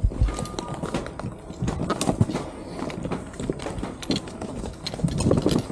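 Irregular knocks, scrapes and crunches of a snowboard and boots working down snow-covered steps.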